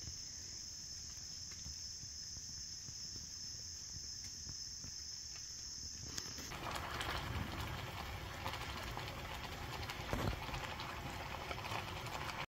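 Insects, crickets or katydids, keep up a steady high-pitched trill in woodland for about the first half. The trill cuts off suddenly just past the middle, and a louder crackling hiss takes over.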